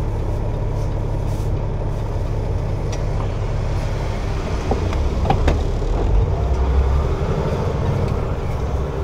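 Diesel engine of a Peterbilt semi truck running, heard from inside the cab as a steady low drone that swells louder about six seconds in, with a few light knocks.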